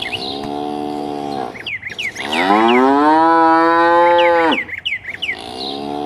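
A cow moos three times, the middle call the longest and loudest, rising at its start and then held. Short high bird chirps come between the calls.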